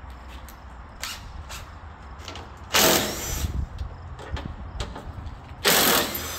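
Cordless power driver running in two short bursts, the first a little under a second, the second about half a second, as it backs fasteners out of a truck's headlight mounting. Light clicks of handling come between the bursts.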